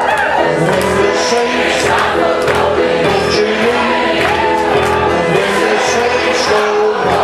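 A large crowd singing a gospel song together with live band accompaniment and a steady beat.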